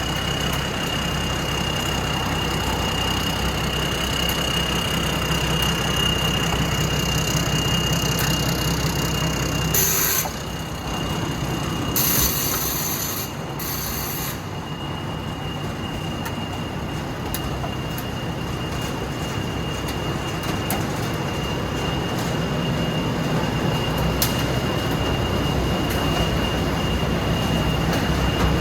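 Thai Seng Yont Thunder rice combine harvester running steadily: an engine drone with a constant high whine over it, and a few short hissing bursts about a third of the way in.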